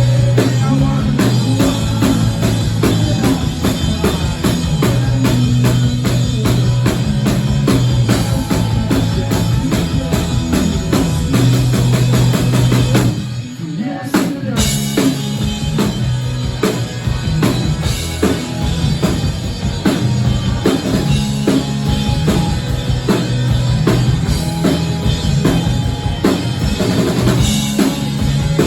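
Rock band playing live, with the drum kit's kick and snare driving a steady beat over bass and guitar. About halfway the band drops out for a moment, then comes back in.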